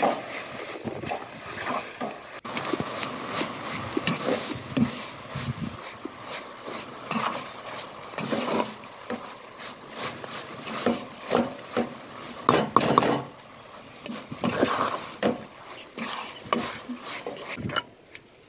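Wooden spoon stirring and scraping flour in an aluminium pot, with irregular scrapes and knocks of the spoon against the pot's sides. The stirring stops near the end.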